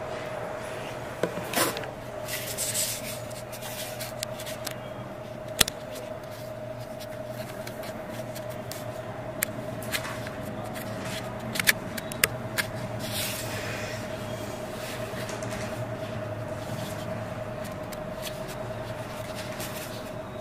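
Room noise: a steady mid-pitched hum, with scattered clicks, knocks and scrapes, the sharpest about five seconds in and again around eleven to twelve seconds.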